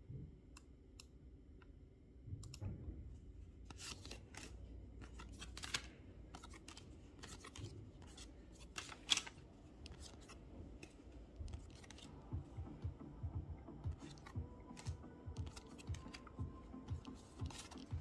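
Pokémon trading cards handled and flipped through: cards sliding and rubbing against each other with light flicks and clicks, and a run of soft low taps in the last few seconds.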